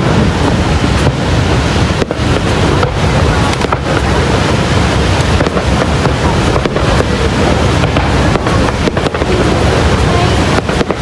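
Steady roar of Niagara Falls' waterfall, with fireworks bursting overhead as occasional short bangs over it.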